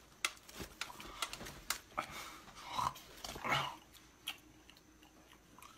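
Gnawing and chewing on hard food: a run of sharp biting clicks, with two louder throaty sounds about two and three and a half seconds in.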